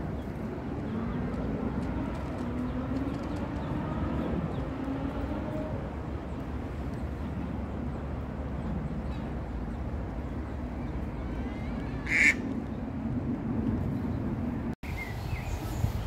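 Birds calling, with wavering calls in the first few seconds over a steady low rumble. One brief, sharp, louder sound about twelve seconds in.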